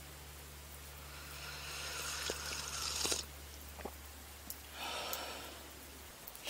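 Two noisy breaths through the nose: a longer one from about one and a half to three seconds in and a shorter one near five seconds. Between them come a few light clicks of wooden chopsticks on an aluminium mess tin during eating.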